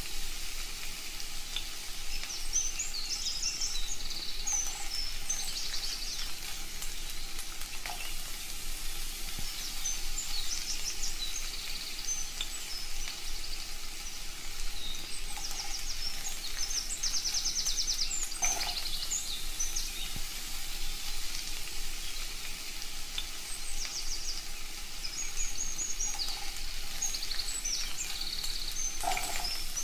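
Food frying in a hot pan with a steady sizzle, with birds chirping now and then in the background.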